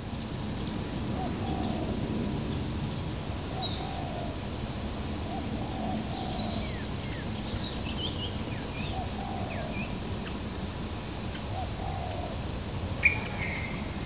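Doves cooing over and over, a short call about every second, while small birds twitter in quick, high chirps, with one sharp, loud chirp near the end. A steady low rumble runs underneath.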